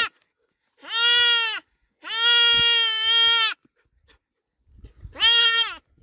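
Young goat kid bleating loudly three times: a short bleat about a second in, a long drawn-out one a little after two seconds, and another short one near the end. The kid is bleating while held for castration.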